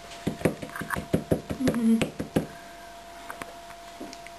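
A spoon knocking and scraping against the mixing bowl and muffin tin while muffin batter is spooned into the tin: a quick series of about ten sharp knocks in the first two and a half seconds, then only faint taps.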